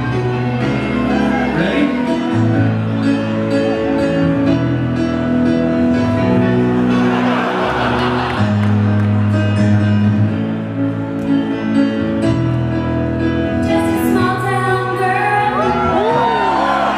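Live pop-rock band playing held chords with a male lead vocal through the PA. A short noisy swell comes about halfway through, and gliding sung lines come near the end.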